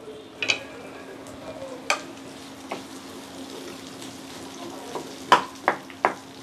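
Cut onions sizzling in hot oil in a nonstick frying pan while a spatula stirs them, scraping and knocking against the pan a few times, loudest about five seconds in. A steady low hum runs underneath.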